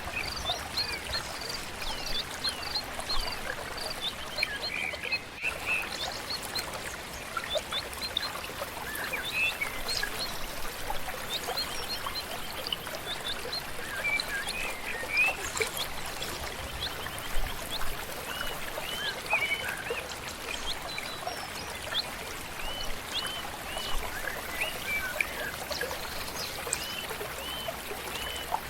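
Water flowing steadily in a stream, with many small birds chirping and singing over it in short, repeated rising and falling calls.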